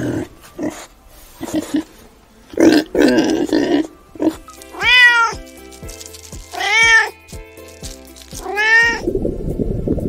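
Pigs grunting in the first few seconds, then a cat meowing three times, each meow rising and falling in pitch, about two seconds apart, over soft background music. A steady bubbling of water starts near the end.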